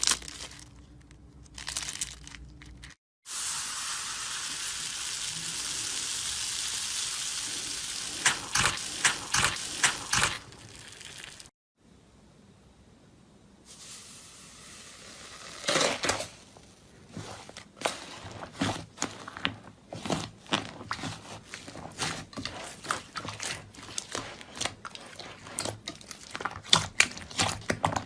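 Slime being handled in short cut-together clips: a steady hiss for several seconds, then many quick, irregular crackles and pops as the slime is pressed and stretched.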